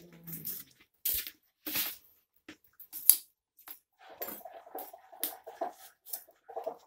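Dry twigs and sticks snapping and crackling at a clay wood-fired stove: a series of irregular sharp cracks, the loudest about three seconds in, growing denser in the second half.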